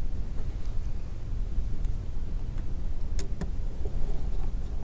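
Faint clicks and ticks of a small screwdriver and tiny metal screws being picked up and set into a phone's frame, a few scattered and the clearest two close together a little past three seconds in, over a steady low background rumble.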